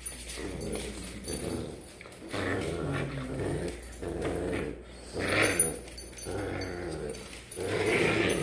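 Pit bull puppies growling in play as they tug at a rope toy, in repeated short bouts.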